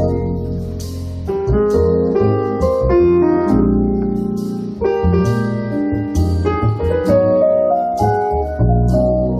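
A live small band playing, with piano to the fore and a hollow-body electric guitar; the chords change every second or so.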